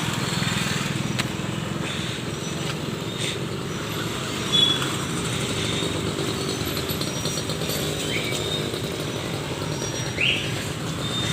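Street noise with a motor vehicle engine running steadily, and a few short, faint high chirps over it.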